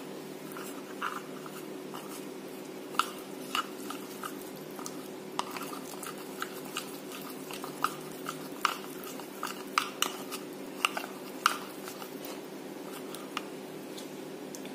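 Metal spoon stirring and scraping a thick maida flour-and-water paste in a small plastic bowl: irregular clicks and taps of the spoon against the bowl, over a steady low hum.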